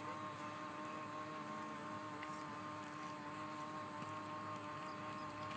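Small electric motor of a bubble machine whirring steadily with a constant hum while it blows bubbles.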